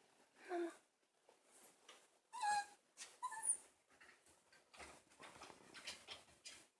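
Shiba Inu puppy making a few short, high, squeaky whimpers, several ending in a falling pitch, the kind of squeak a puppy gives as it yawns on waking, followed by softer noises.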